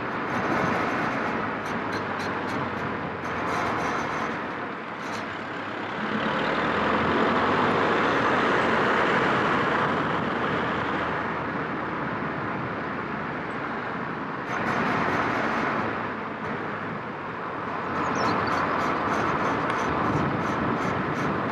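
Seat León FR driving, with road and tyre noise that swells and eases and a regular high ticking from a wheel, about three clicks a second, in several stretches. The owner cannot place the noise and has ruled out the brakes and the disc's dust shield.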